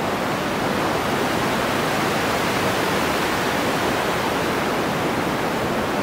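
Synthesized noise played back through an EQ whose low-pass filter cutoff is automated, the raw layer of an ocean-wave sound being built from scratch: a steady, even hiss.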